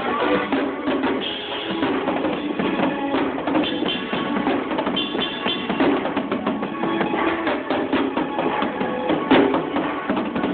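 A drum kit being played with many rapid hits, along with music that has other pitched instruments.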